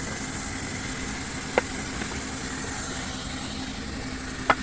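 An engine running steadily at idle, with two short sharp knocks, one about a second and a half in and one near the end.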